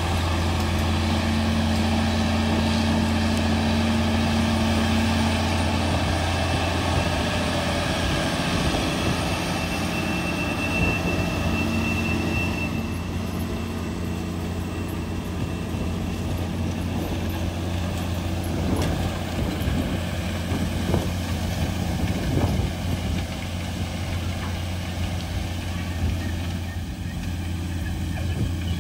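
Case IH 385 articulated four-wheel-drive tractor's diesel engine running steadily under load as it drives past pulling a manure drag-line toolbar, a deep steady drone that thins a little as it moves away, with a few knocks in the second half.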